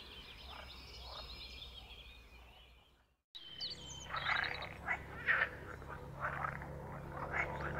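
Edible frogs croaking in short, repeated calls through the second half, over high chirping birdsong in the first few seconds. The sound cuts out briefly about three seconds in.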